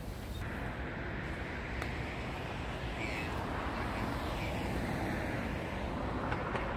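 Steady city street ambience, mostly road traffic noise.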